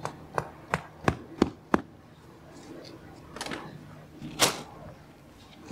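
Pegs for the robot mower's boundary wire being tapped into the ground: six quick sharp knocks, about three a second, then two short scraping sounds, the second one louder.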